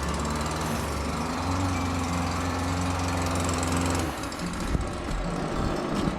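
Garden string trimmer running steadily, its low hum dropping away about four seconds in.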